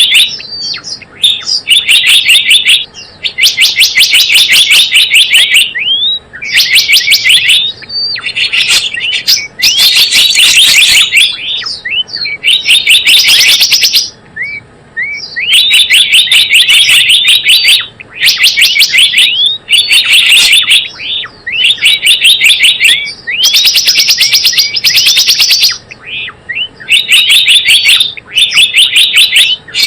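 Gelatik bloong bird calls played as a lure recording: loud bouts of fast, chattering high chirps, each bout lasting one to two seconds with short gaps between, and a few rising single notes in the gaps.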